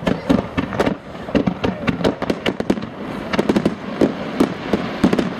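Fireworks display: aerial shells bursting in a rapid, irregular barrage, several sharp bangs a second with no let-up.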